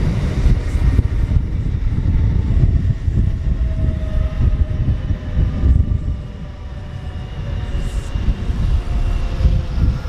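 Kintetsu electric train running past on the rails: a steady low rumble, with a faint whine over it in the middle and latter part, and a brief dip in loudness a little past halfway.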